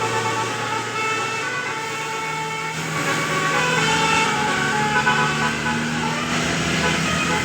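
Bus telolet basuri musical horn playing a tune, several tones sounding together and changing pitch in steps.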